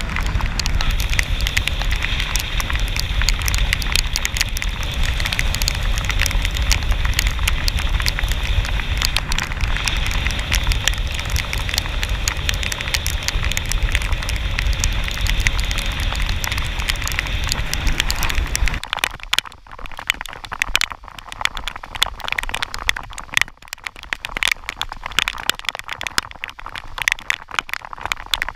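Heavy rain crackling as dense drops on the camera and the river surface. For the first two-thirds this sits over the low rumble and rush of a bass boat running at speed, which cuts off abruptly, leaving only the rain.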